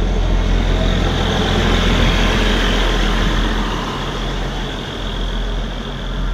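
Diesel engine of a Duomatic ballast-tamping machine running steadily up close, a deep hum under a loud mechanical rush, a little louder in the first half.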